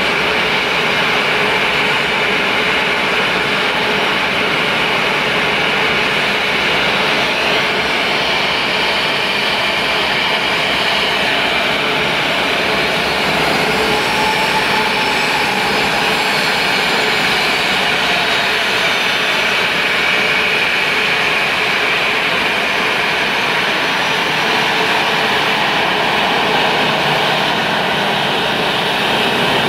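Boeing 737-800's CFM56-7B turbofan engines running at low thrust as the airliner taxis: a steady jet whine over a broad rush. A fainter whine rises and falls about halfway through.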